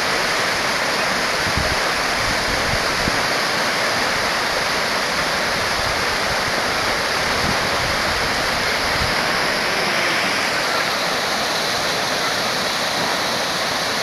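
Fast mountain river rushing over rocks and boulders in whitewater rapids, a steady, loud roar of water. A few low thumps on the microphone in the first half.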